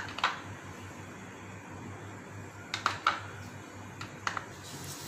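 Metal spoon clicking against the side of a small plastic bowl while an egg is beaten: a handful of short, sharp clicks, in pairs, over a faint low hum.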